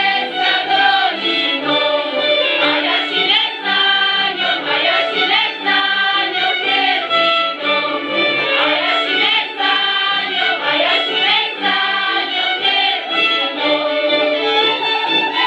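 Many women's voices singing a highland folk song together in chorus, a steady, full ensemble sound.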